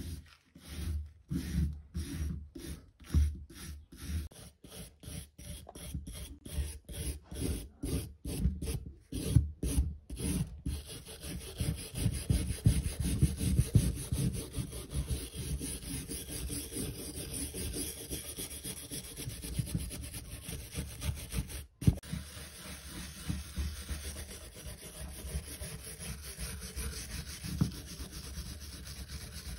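Small wire brush scrubbing loose rust off a steel cleaver blade: separate scraping strokes about twice a second for roughly the first ten seconds, then quick continuous scrubbing.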